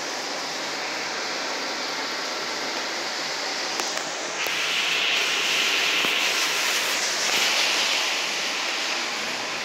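Heavy rain falling, a steady hiss that grows louder about halfway through.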